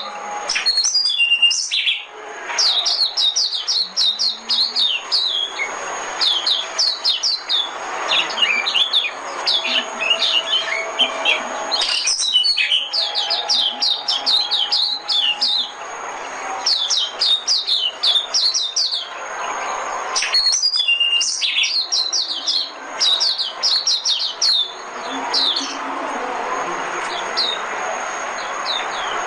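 White-eye (vành khuyên) singing a fast twittering song of short high chirps, in phrases of a few seconds separated by brief pauses.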